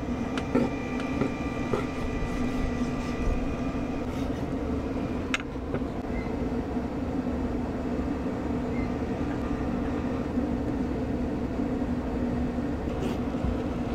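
A steady machine hum with a few held tones, with a few light knocks of a knife on a wooden cutting board, the clearest about five seconds in.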